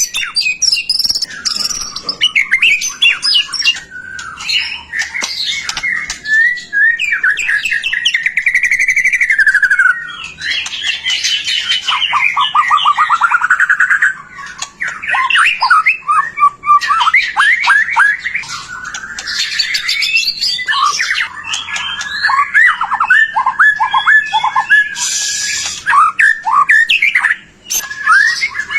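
White-rumped shama (murai batu) singing continuously in full 'gacor' song: a fast, varied stream of whistles, gliding phrases and rapid trills, with short pauses about halfway through and near the end.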